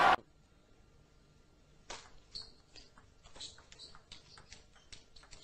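Table tennis rally: the celluloid ball clicking off paddles and the table in a quick, irregular string of sharp ticks that starts about two seconds in, fairly quiet.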